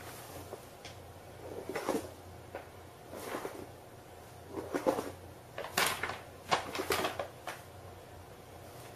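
Paper carry bag crinkling and scraping on a hard floor as a cat moves around inside it: a series of irregular rustles, loudest in the middle of the stretch.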